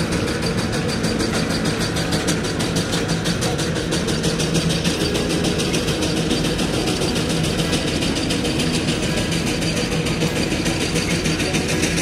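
1915 Frick single-cylinder steam traction engine working under load, pulling a sled: steady chuffing with a rapid, even beat.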